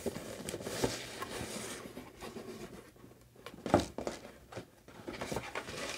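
Cardboard subscription box being opened and handled: rustling and scraping of the box and packing, with small clicks and one sharp knock near the middle, the loudest sound.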